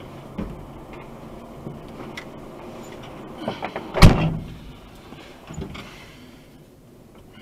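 Truck elevator's vertical door opening: a few light knocks and rattles, then one loud clunk about four seconds in as the door sets off, and a smaller knock a moment later.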